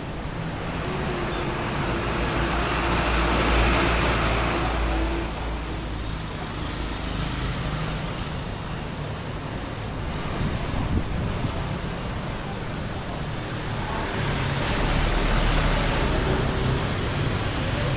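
Motor vehicle engine noise mixed with road traffic, swelling and easing twice: about three seconds in, and again near the end.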